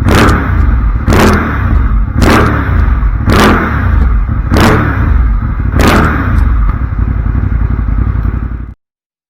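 Ducati Monster 821's V-twin engine, breathing through an aftermarket Termignoni silencer, revved in six short throttle blips about once a second, then running steadily for a couple of seconds before the sound cuts off abruptly near the end.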